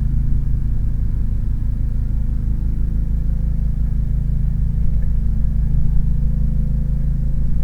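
A steady low hum with no change, its energy concentrated in the bass.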